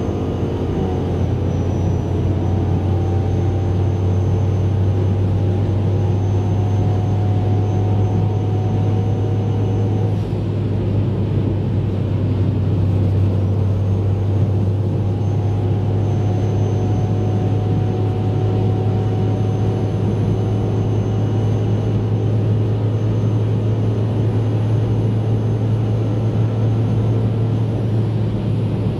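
Turbocharged Ford Mustang GT 5.0 V8 at a steady high-speed cruise: a deep, even engine drone with road and wind noise. The pitch eases down slightly about a second in, then holds level, with a faint high whine above it.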